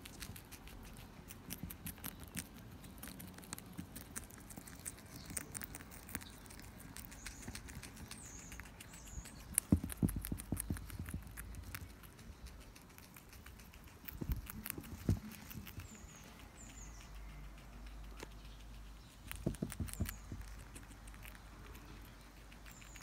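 Guinea pigs chewing and crunching celery: a dense run of fast, crisp clicks, with a few dull low thumps scattered through.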